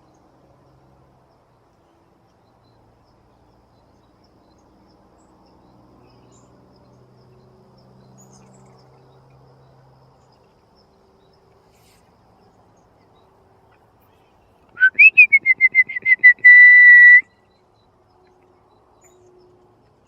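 One loud whistled call about two and a half seconds long, near the end: a quick upward sweep, then a fast stutter that settles into a steady held note.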